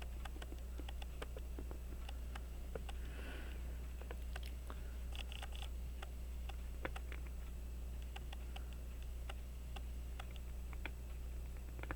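Faint, irregular light clicks and taps of small metal watchmaker's tools on a pocket watch movement as a tiny screw is worked at and refuses to go in. Under them runs a steady low hum.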